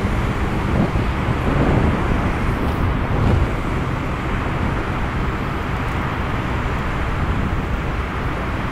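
Honda PCX scooter riding through a road tunnel: a steady mix of its single-cylinder engine, wind and tyre noise, with surrounding traffic.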